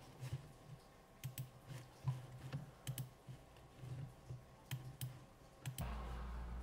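Light plastic button clicks at uneven intervals, from pressing keys and buttons while working out a button sequence. A steady low hum comes in near the end.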